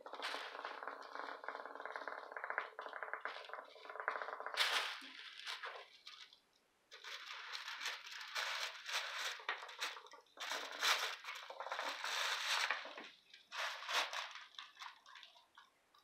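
Plastic bag crinkling and rustling in irregular bursts as a cat paws and noses into it. For the first four and a half seconds a steady pitched sound runs underneath and then stops.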